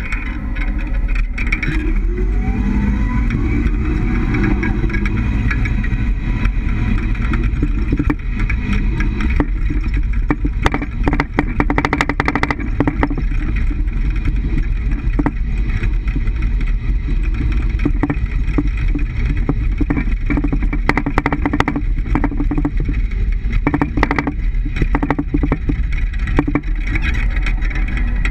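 Road and driveline noise of a lowered Toyota HiAce 200-series van on the move, heard from the rear leaf spring, with a rising engine note early on and clusters of sharp knocks about ten seconds in and again past twenty. The knocks are the rear bump stop striking, as the 3-inch lowering block leaves too little suspension travel.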